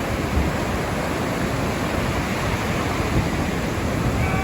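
Surf washing onto a beach, a steady rushing noise, with wind buffeting the microphone and adding a low rumble.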